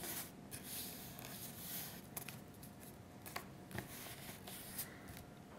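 Faint rustling of paper as glued sheets are pressed and smoothed flat by hand on a table, with a few small crisp ticks.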